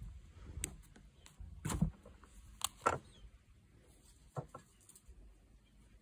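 Handling sounds of needle-nose pliers pulling a sewing needle through yarn: a few short clicks and scuffs, the loudest about two and three seconds in.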